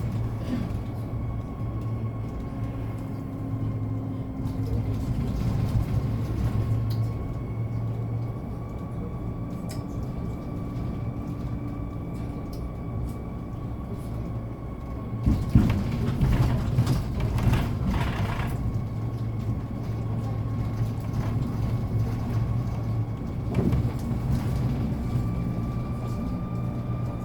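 Inside a moving Hyundai Elec City Town electric bus: a steady low rumble of drive and road with a thin, steady high whine from the electric drive. About fifteen seconds in, a few seconds of knocking and rattling.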